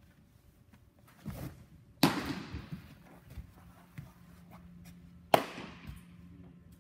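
A pitched baseball smacking into a catcher's mitt about two seconds in: a loud, sharp pop that echoes through the indoor facility, just after a duller thump. A second, similar sharp pop comes about three seconds later.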